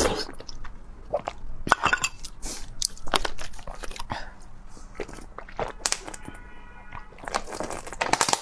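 Close-miked eating sounds: wet chewing and mouth clicks as a soft-boiled egg is eaten, then drinking from a plastic bottle near the end.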